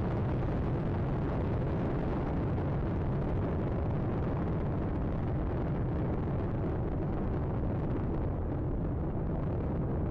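Space Shuttle Atlantis in powered ascent, its two solid rocket boosters and three main engines making a steady deep rumble. The higher hiss thins slightly near the end.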